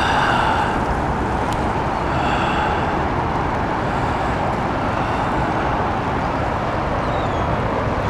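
Steady city traffic noise from the road bridge and nearby roads, with two short high-pitched calls, one at the very start and one about two seconds in.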